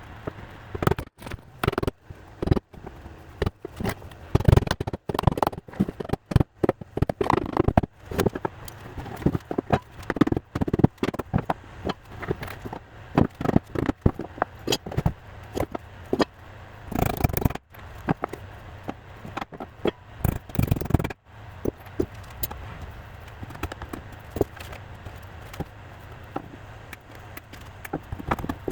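Wooden beehive brood box pieces being handled and fitted together: irregular knocks, clicks and scrapes of wood on wood, with two longer scraping noises about two-thirds of the way through.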